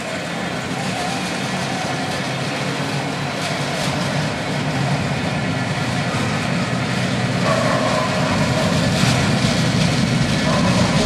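An engine running steadily and getting gradually louder, with a wavering tone appearing past the middle.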